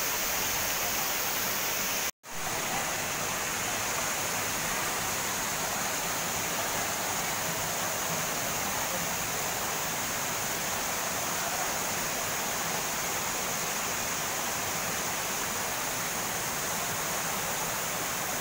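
Waterfall: the steady rush of water falling onto rocks. It breaks off into a brief silent gap about two seconds in.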